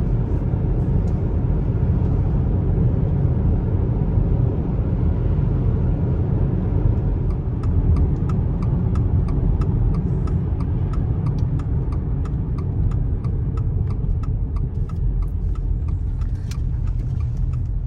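Car running with a steady low rumble of engine and road. From about seven seconds in, regular ticking joins it at roughly two ticks a second.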